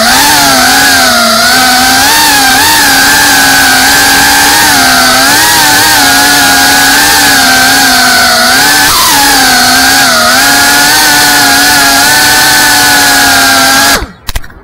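FPV racing quadcopter's brushless motors and propellers whining, recorded by its onboard camera, the pitch wavering up and down with the throttle. The sound cuts off abruptly near the end.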